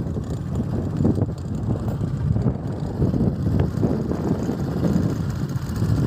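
A vehicle travelling, its rumble mixed with wind buffeting the microphone.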